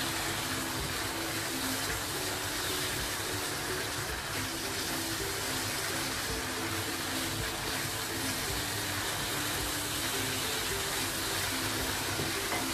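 Onion-tomato masala sizzling steadily in a hot nonstick pan as it is stirred with a wooden spatula, frying down with splashes of water added a little at a time.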